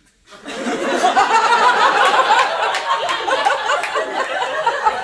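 Audience laughing loudly, breaking out about half a second in and going on as a dense crowd of overlapping voices.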